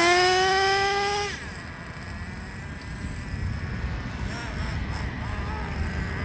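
Traxxas TRX 3.3 nitro engine in an RC truck, run up steadily under throttle as a break-in pass, its pitch climbing for about a second. It then falls away sharply, leaving only a faint engine sound over a low rumble.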